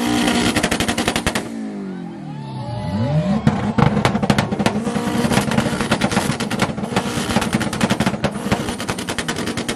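A car engine held on a two-step launch limiter, with a steady high-rev note and a rapid, machine-gun-like crackle of exhaust pops. About 1.5 s in the revs fall away, then climb back and hold on the limiter with dense popping until near the end.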